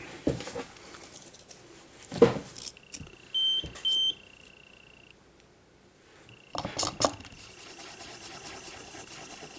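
Two short, high electronic beeps in quick succession a little past the middle, over a thin steady high whine. Small clicks and knocks from handling tools come before and after.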